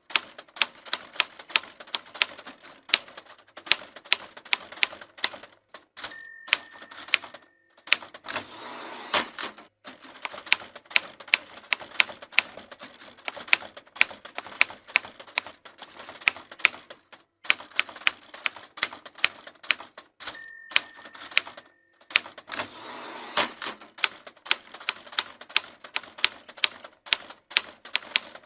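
Old manual typewriter typing fast, a rapid run of sharp metallic key strikes. Twice the margin bell rings briefly, followed each time by a short sliding rasp of the carriage return before the typing resumes.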